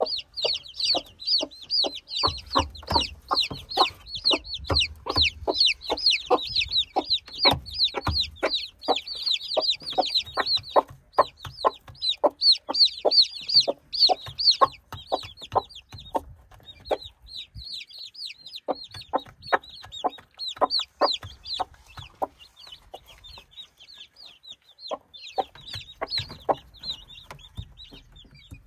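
Day-old chicks peeping continuously in high, rapid chirps, over many short, sharp taps that come several times a second and fit chicks pecking at grain in a stone feeder. Both ease off briefly about two thirds of the way through.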